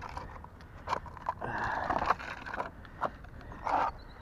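A corroded metal tin box being opened and handled: scattered clicks and knocks, a longer scraping rattle about a second and a half in, and a shorter one near the end.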